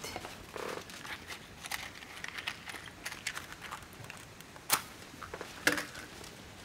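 Quiet handling sounds with scattered soft clicks, then two sharp clicks about a second apart as a small flame is struck alight.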